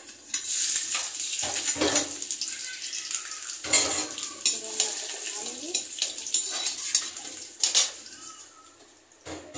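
Chopped ginger dropped into hot oil in a kadai, sizzling loudly as the tadka starts, the hiss easing off near the end. A slotted metal spoon stirs it, clinking against the pan a few times.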